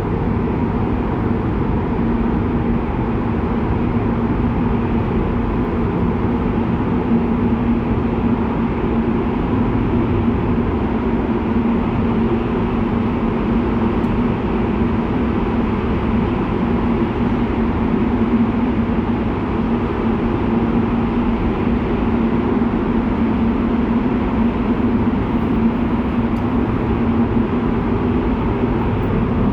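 Strong-wind simulator's blower running steadily and loudly: a continuous rushing gale with a steady low hum from the fan.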